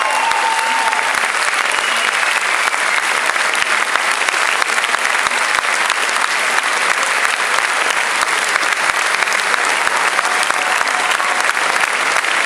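Large audience giving a standing ovation: dense, steady applause of hundreds of hands clapping.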